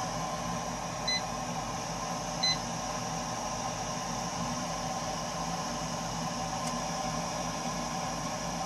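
Burnham Alpine ALP150W gas-fired boiler running: a steady rushing noise with several steady tones, the noise the owner finds strange in a boiler only three years old. Two short high beeps sound about a second in and again about two and a half seconds in.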